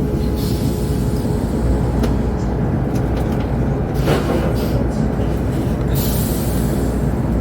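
Chinese high-speed bullet train running at speed, heard from inside the passenger car: a steady low rumble and rush of wheels and air, with a brief sharper noise about four seconds in.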